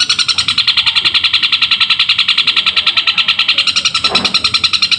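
Long-tailed shrike (cendet) singing a loud, unbroken, rapid chatter of high chirps, about ten a second, in the sparrow-like 'gereja' style that mimics Eurasian tree sparrow calls. A brief lower sound cuts in about four seconds in.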